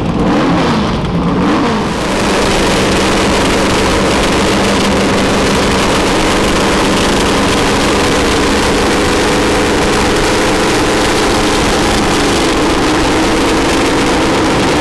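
Formula 5000 racing car's V8 engine running: blipped up and down for the first couple of seconds, then held at steady revs, with more throttle blips near the end.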